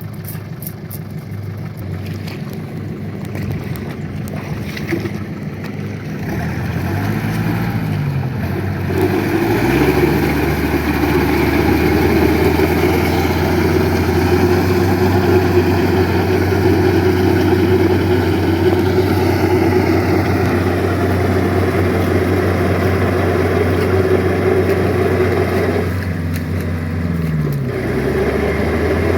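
A tractor's engine running steadily. Its pitch dips and comes back up a few times, and it grows louder about nine seconds in and stays there.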